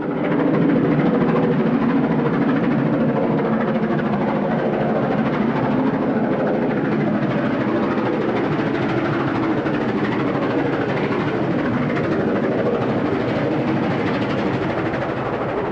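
Steam locomotive 'Duchess of Hamilton', an LMS Stanier Pacific, working a train: a steady, dense rush of locomotive and train noise that starts abruptly and holds at a constant level.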